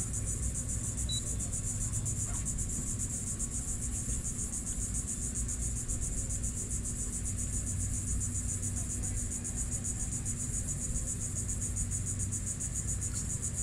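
Steady insect chorus: a high, fast-pulsing buzz that runs on without a break, over a low steady rumble.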